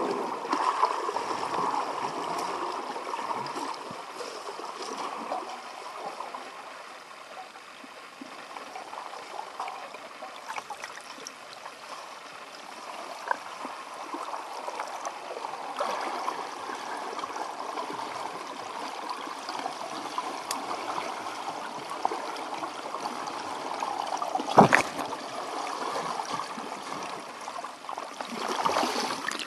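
Swimming-pool water heard underwater: a steady, muffled rushing and gurgling that swells and fades slowly. Near the end there is one sharp click.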